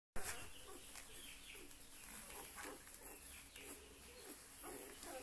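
Two-day-old puppies making faint, scattered squeaks and grunts as they squirm in a heap.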